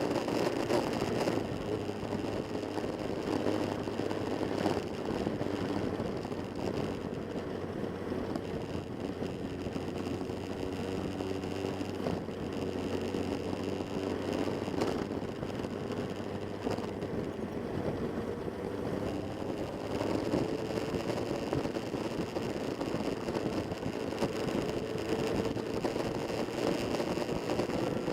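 Vehicle engine running steadily at cruising speed, its pitch drifting slowly up and down with some road or wind noise.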